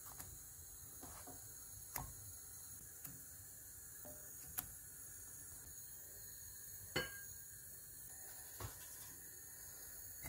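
Several light clinks and taps of cookware, a spatula against a nonstick frying pan and the lid of a pot, over a faint steady hiss. The loudest is a short ringing clink about seven seconds in, as the pot lid comes off.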